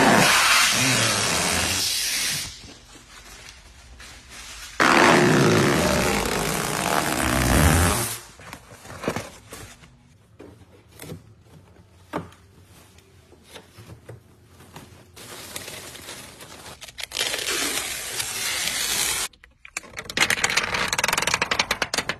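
Thin protective plastic film being peeled off a new car's paint, door trim and screen and crumpled by hand: several long stretches of loud rustling and tearing-peel noise, with quieter crinkling and handling between and a fast crackling near the end.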